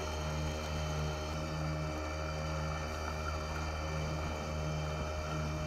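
A boat motor running steadily at cruising speed, a constant drone with a low tone that swells and fades every second or so, over the wash of water.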